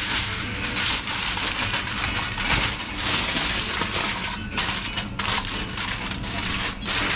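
Aluminium foil crinkling and crackling as a sheet is pulled across and crimped around the rim of a glass baking dish.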